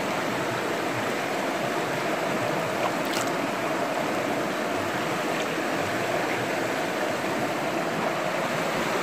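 Shallow stream running steadily over rocks, a constant rush of water.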